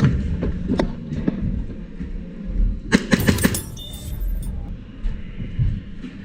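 A few sharp clicks and knocks, then a quick run of about five sharp clicks close together about three seconds in, over steady low background noise.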